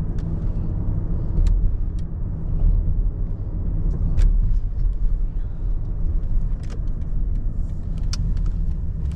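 Steady low road and engine rumble of a moving car heard from inside the cabin, with a few scattered sharp clicks.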